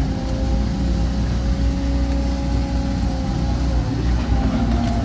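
Caterpillar excavator's diesel engine running steadily under work, a low rumble with a steady whine over it.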